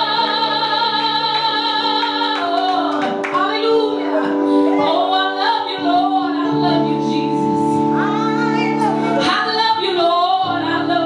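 Worship music: sustained keyboard chords that change about every four seconds, with a woman's voice singing and vocalising over them.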